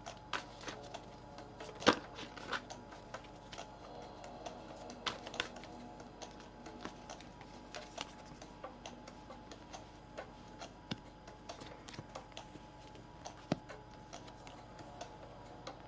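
Tarot cards being handled and laid down on a cloth-covered table, giving irregular soft clicks and taps, the sharpest about two seconds in, over quiet background music with steady held tones.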